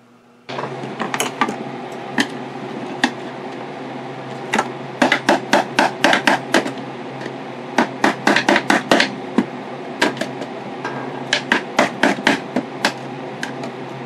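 A hammer tapping a chisel again and again to drive it under an old metal latch plate on a Singer Featherweight's case. The sharp metal taps come irregularly, some singly and some in quick runs, over a steady low hum.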